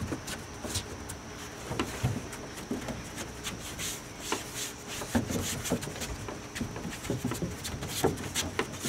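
Bare feet shuffling, sliding and stepping on a wooden deck during dance moves, with scattered light knocks and rubs.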